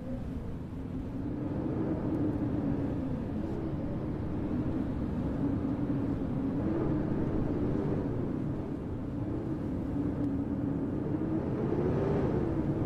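Howling blizzard wind: a steady low rumble with a moaning tone that slowly wavers up and down in pitch.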